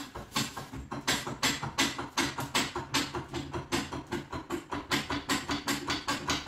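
Hydraulic trolley jack being pumped to lift one side of a car: a steady run of clicks and clunks, about three a second.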